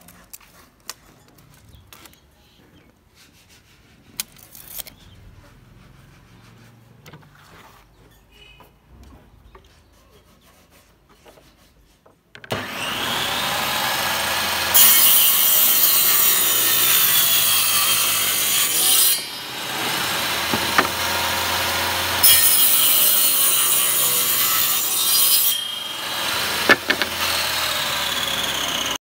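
Light handling knocks, then about twelve seconds in a table saw comes in suddenly and runs. Its circular blade rips a veneered chipboard panel along a wooden fence, growing louder in two cuts of about four seconds each, and it stops abruptly near the end.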